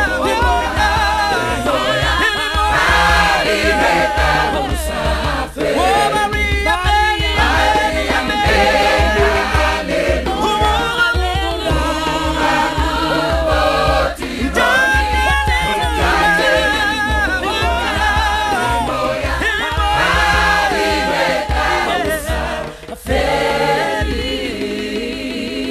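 Background music: a choir singing over a pulsing bass line, with a brief break near the end.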